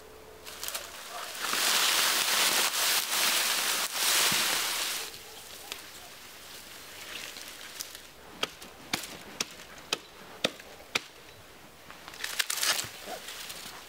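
Dry reed stalks rustling and crackling loudly as an armful is gathered and pressed into a bundle. Later comes a run of sharp crunching footsteps in snow, about two a second, and a short rustle near the end.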